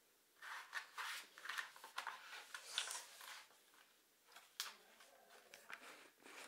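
Hands rubbing and pressing grip tape down onto a skateboard deck: a run of soft, scratchy brushing strokes in the first half or so, then a few faint taps.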